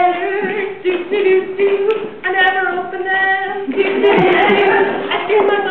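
Female voices singing a cappella in long held notes, broken by short breaths between phrases.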